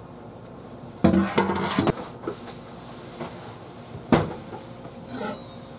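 Kitchen clatter of hard utensils or cookware knocking together: a loud clatter about a second in lasting most of a second, with a short ring, then a single sharp knock about four seconds in and a small rattle soon after.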